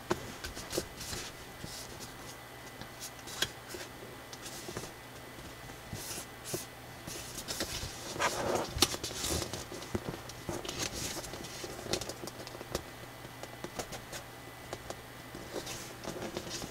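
Sheet of thick coloured drawing paper being folded by hand: irregular rustles, crinkles and soft snaps as fingers press and slide along the creases, loudest about eight seconds in.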